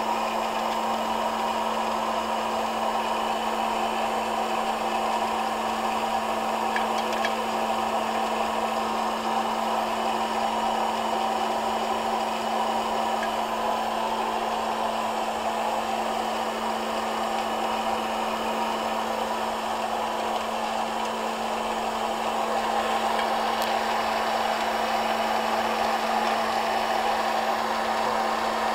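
Hot-air popcorn popper roasting coffee beans: its fan and heater blow steadily over a constant motor hum, with the beans tossed about in the air stream. The roast is partway through, with the beans turning light brown and no cracking yet.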